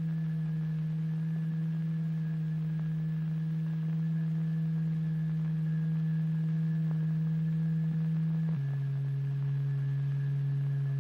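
A steady, low, pure hum from a tone generator driving the vibrating fluid. About eight and a half seconds in, its pitch drops abruptly to a slightly lower note.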